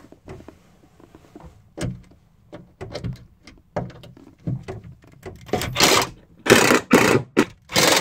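Cordless impact driver on a screw in a wooden panel: scattered light knocks and clicks, then several loud short bursts of hammering in the last few seconds.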